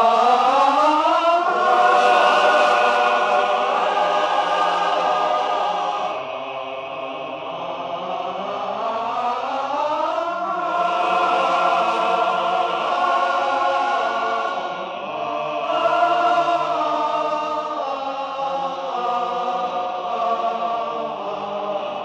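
Wordless choir singing long held chords. The voices glide up together into a chord at the start and again about nine to ten seconds in.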